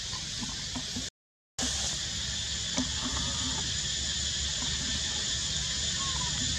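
Steady chorus of insects, a dense high buzzing, with a half-second break of total silence about a second in.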